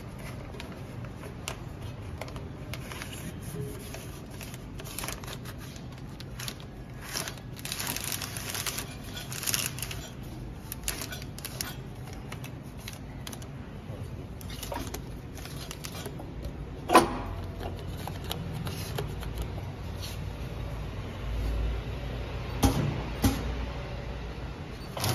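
Plastic packaging film crinkling and rustling as it is threaded by hand through a vertical form-fill-seal packing machine, with scattered clicks and handling knocks and one sharp knock about two-thirds through, over a low steady hum.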